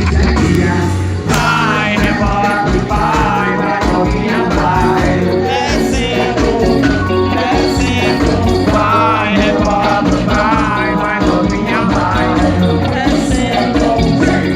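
A live band playing loud, up-tempo music with a steady beat, a bass line and a wavering melodic lead.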